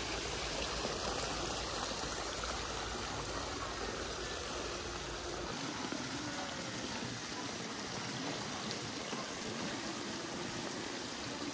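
Water falling steadily from a wall-mounted spillway fountain into a swimming pool, a continuous rush of splashing water.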